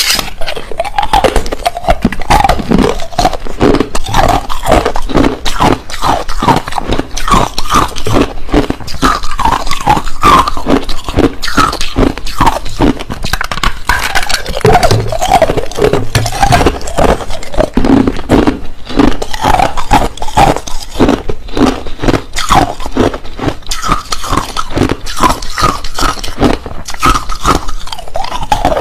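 Hard crushed ice being chewed close to the microphone: a dense, continuous run of crunches and cracks, with the pitch of the crunching shifting as the mouth works.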